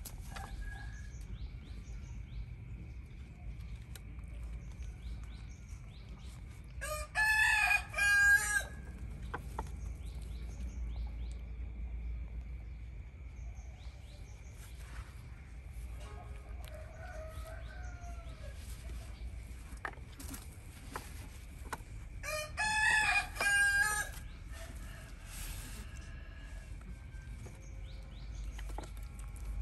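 A rooster crowing twice, about fifteen seconds apart, each crow lasting about a second and a half.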